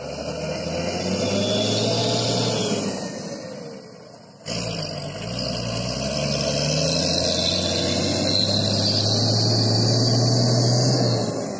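Wheel loader's diesel engine revving up and down as it works. The sound sags, then jumps back abruptly about four and a half seconds in, and builds again before easing off near the end.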